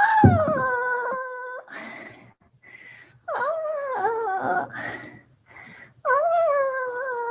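Three long, high wailing cries, each starting higher and sliding down to a held, steady pitch.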